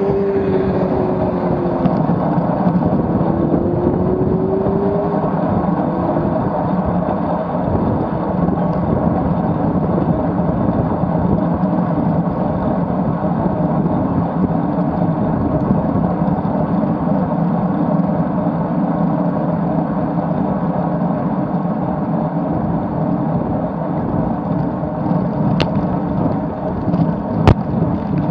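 Wind rushing over an action camera's microphone with road noise from a road bike riding at about 30 km/h. In the first few seconds an engine hum dips and then rises in pitch, and two sharp clicks come near the end.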